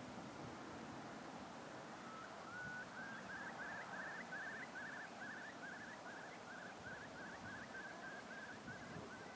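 A bird calling in a long series of short repeated notes, about two or three a second, over a steady background hiss of wind and open-air noise; the calls start about two seconds in and run for most of the rest.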